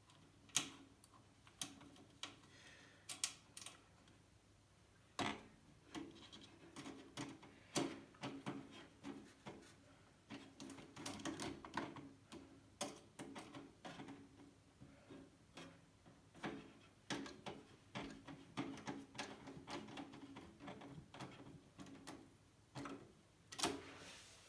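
Irregular light clicks, taps and scrapes of hardware being handled and fitted inside a computer case, many small knocks at uneven intervals.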